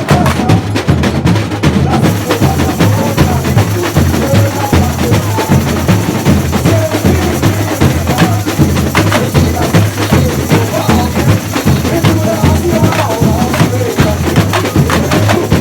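Samba school bateria playing a samba rhythm: deep bass drums beating a steady low pulse under a dense, fast stream of snare and other percussion strokes.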